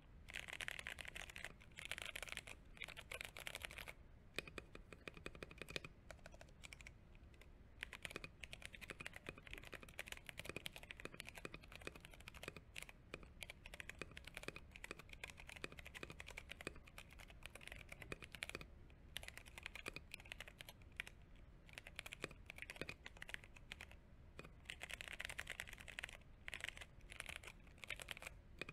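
Mechanical keyboard with brown tactile switches being typed on continuously: a fast run of light key clicks and clacks, with denser flurries of typing at the start and near the end.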